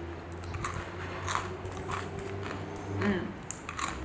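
Seaweed rice crackers (senbei) being bitten and chewed, a string of short, crisp crunches.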